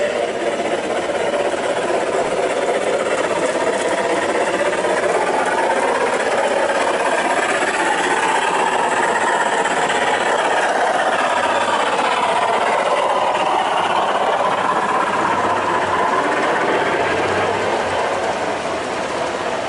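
A G-scale die-cast 4-6-4 Hudson model steam locomotive and a long train of freight cars rolling past on curved metal track. It makes a steady mechanical rumble, with ringing tones that slowly waver up and down in pitch.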